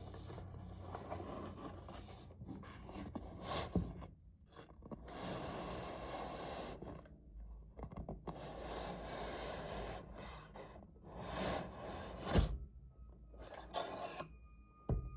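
Cardboard keyboard box being handled and opened: irregular scraping, rubbing and tearing of cardboard and packaging, with a few sharp knocks. Near the end a steady high-pitched squeak starts up.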